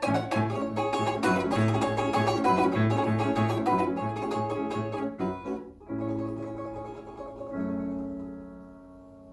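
Plucked string instrument playing a Russian folk dance piece with piano accompaniment. It plays a fast run of rapid repeated strokes, then a brief break about six seconds in, then held ringing chords that fade away.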